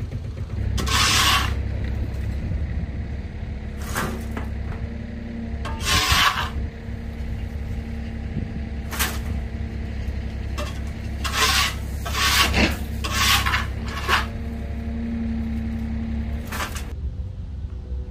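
Stiff sweeping brush scraping across gritty stone and dust in about ten separate strokes, over a small engine running steadily.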